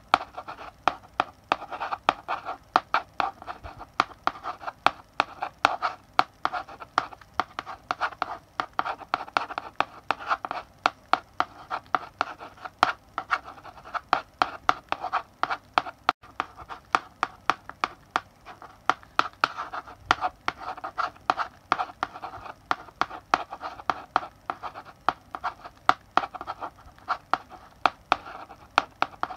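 Chalk writing on a blackboard: a steady run of quick taps and short scratchy strokes, several a second, as letters are written.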